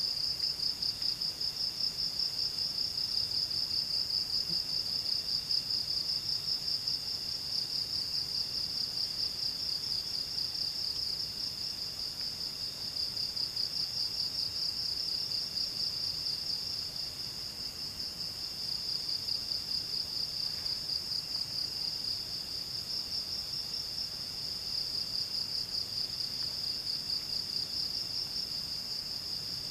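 Night insects trilling: one high, rapidly pulsing trill that runs without a break, with a fainter, higher trill starting and stopping behind it.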